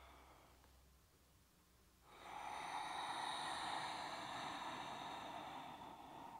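A woman's long, audible yoga exhale, breathed in time with rounding her back into cat pose. It starts about two seconds in, runs steadily for about four seconds and stops just before the end. The tail of a softer earlier breath fades out in the first second.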